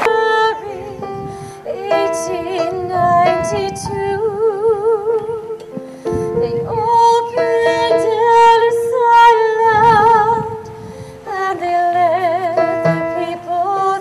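A woman singing a slow song in long held notes with wide vibrato, over instrumental accompaniment. The phrase breaks off briefly about ten seconds in, then she sings on.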